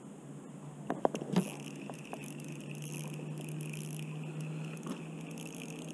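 A few sharp clicks and knocks about a second in, then the steady whir of a spinning reel being cranked as a crappie is reeled in.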